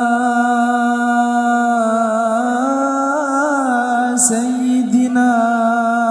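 A solo male voice sings an Arabic sholawat through a microphone. He holds a long, drawn-out note on 'ala' with small melodic turns, breaks briefly about four seconds in, and moves into 'sayyidina' near the end.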